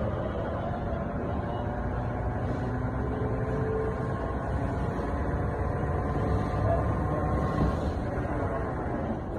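Toyota Prado's front wheel and tyre spun at speed on the car by an on-car wheel balancer, giving a steady mechanical rumble and whir.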